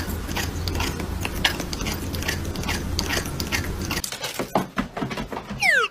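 A cat eating dry kibble from a bowl, with a quick run of crunches. Just before the end comes a short falling whistle-like glide.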